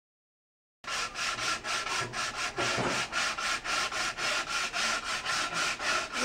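Hand tool rubbing back and forth over a wooden board in quick even strokes, about five a second, starting abruptly about a second in.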